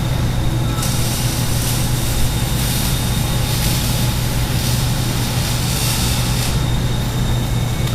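A steady low machine hum, with a hiss that comes in about a second in and fades out near the end.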